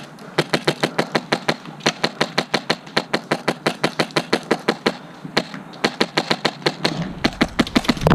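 Airsoft gun firing a long, even string of rapid shots, about five or six a second, with a low rumble coming in near the end.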